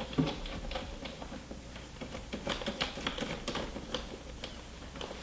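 Irregular small clicks and taps of a screw and nut being handled and threaded finger-tight through a metal back plate on a Harley Tour-Pak, thickest around the middle.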